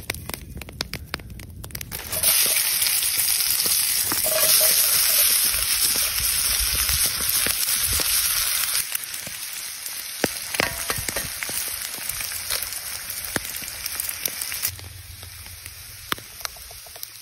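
Wood campfire crackling, then from about two seconds in a loud steady sizzle of diced potatoes and meat frying in a cast iron skillet, with scattered pops and clicks. The sizzle turns much quieter near the end.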